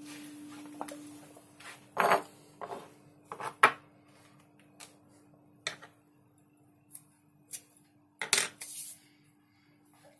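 Plastic and metal parts of a KJ Works M4 gas-blowback airsoft magazine being picked up and set down on a wooden workbench: irregular clicks and knocks, the loudest about two seconds in and a little past eight seconds.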